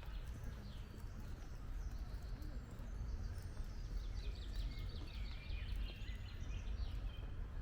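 Small birds chirping, with a rapid trill of repeated high notes from about three seconds in, over a steady low rumble.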